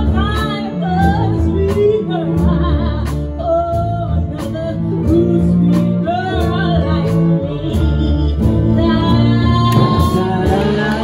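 Live hip hop orchestra playing: bowed strings and double bass hold low sustained chords under a steady drum beat of about two hits a second, while male and female singers sing the melody together.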